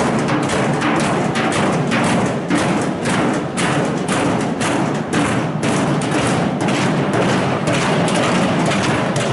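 A protest crowd drumming and banging, a dense, irregular clatter of many overlapping knocks and thuds.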